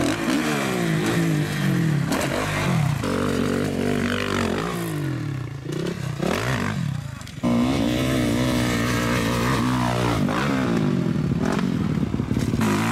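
Dirt-bike engines revving up and dropping off again and again as riders launch off jumps, the pitch rising and falling in repeated sweeps. The sound dips about six seconds in, then comes back abruptly at full level a moment later.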